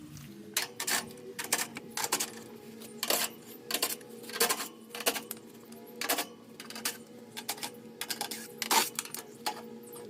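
Irregular sharp metallic clicks and clinks, some twenty of them, from hand tools and sheet-metal panels as the top of an air-conditioning condenser unit is unscrewed and taken off, over a faint steady hum.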